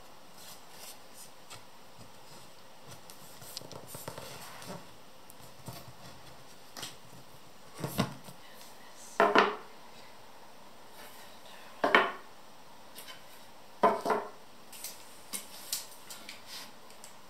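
Slatted bamboo panel being handled and fitted against a wooden table drum: soft rustling, then four sharp hollow wooden knocks with a short ring, and a few lighter clicks near the end.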